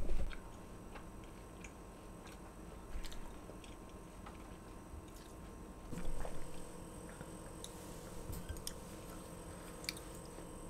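Scattered small clicks and soft taps, with a dull thump at the start and another about six seconds in.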